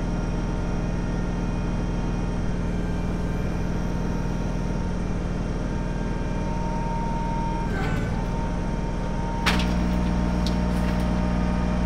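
Kubota BX23S compact tractor's three-cylinder diesel running steadily while working the backhoe, stepping up louder about nine and a half seconds in as it takes more throttle or load.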